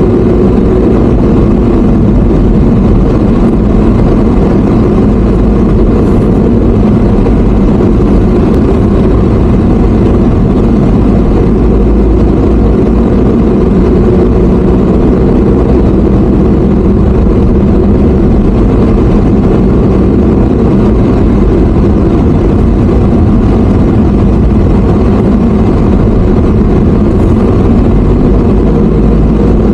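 Motor vehicle on the move: steady engine and road noise with a heavy low rumble and no break or change.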